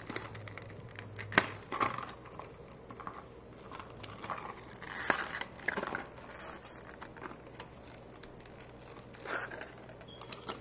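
Hands handling Glock magazine parts and plastic packaging on a tabletop: scattered light clicks and taps with a few short crinkling rustles, one sharper click about a second and a half in.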